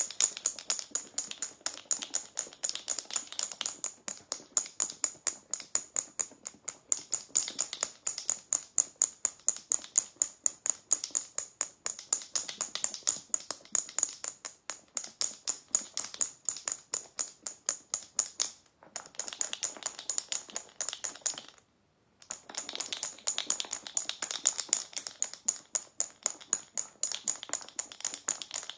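Two marbles clacking inside a jar of cream as it is shaken by hand, a fast, steady run of sharp clicks, several a second, that stops briefly twice. The cream is still mostly liquid, just beginning to thicken on its way to butter.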